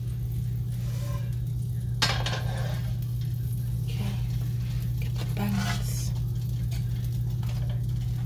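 A nonstick frying pan set down on an electric coil burner with one sharp clank about two seconds in, followed by fainter knocks and clinks as it is handled. A steady low hum runs underneath.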